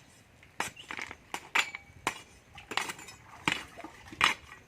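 A series of sharp metallic clinks and knocks at an uneven pace, about two a second, each with a brief ringing.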